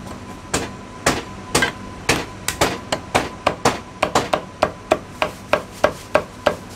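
Heavy Chinese cleaver chopping marinated goose on a thick wooden chopping block: sharp chops about two a second at first, quickening to about four a second after a couple of seconds as the piece is sliced.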